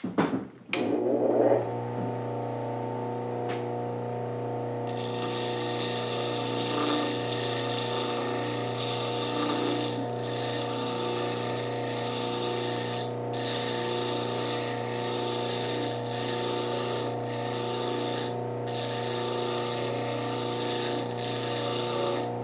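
Baldor buffer used as a bench grinder switched on with a click, its motor spinning up to a steady hum. From about five seconds in, a flat diamond dresser scrapes across the silicon carbide grinding wheel with a steady hiss, broken briefly a few times, as the wheel is trued and a worn divot is ground flat.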